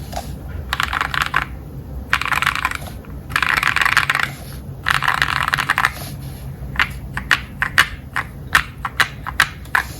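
Mechanical keyboard with lubed Akko Matcha Green switches and XDA-profile keycaps being typed on: four quick rolling runs of keystrokes, as in rapidly typing 'asdf'. These are followed by about a dozen separate single key presses spaced a fraction of a second apart.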